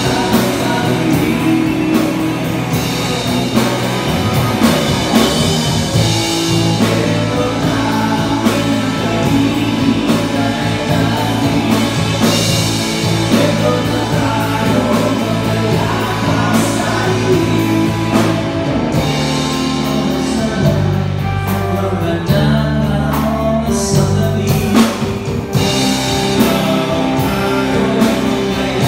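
Live rock band playing: electric guitar, electric bass and drum kit, with a male voice singing the lead.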